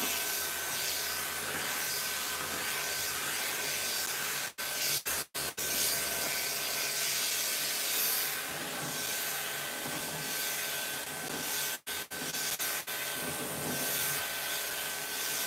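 Clipper vacuum running: an electric pet clipper with a number 10 blade and comb attachment, its hose sucking up the clipped hair as it trims a long-haired Persian cat's coat. A steady rushing hiss with a faint steady whine, broken by a few brief dropouts.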